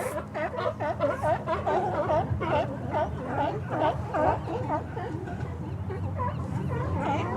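A group of sea lions barking, many short honking barks overlapping several times a second, over a steady low hum.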